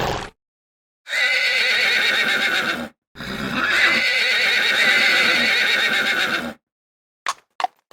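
Horse neighing twice: a whinny of about two seconds, then a longer one of about three seconds. Near the end, hooves start clip-clopping.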